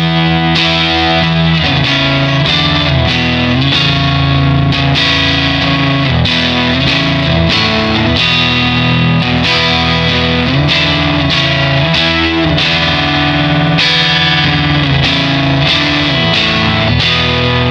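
Electric guitar played through a KOAmps 20 Distortion pedal, a Boss DS-1-based distortion, giving heavily distorted sustained chords and riffs that change every second or two.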